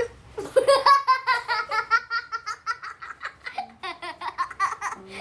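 A young child laughing hard in a long run of rapid, high-pitched laughs, about four a second, trailing off weaker near the end.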